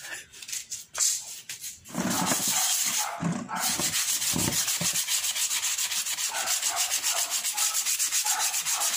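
Sandpaper rubbed by hand over the plastic seat of a monoblock chair in quick, even back-and-forth strokes. It starts about two seconds in, after a few handling clicks.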